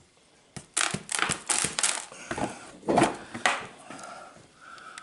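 Gritty scraping and crunching of packed soil and roots as a bonsai's root ball is pried loose from its pot, several rough strokes in the first three and a half seconds, then quieter.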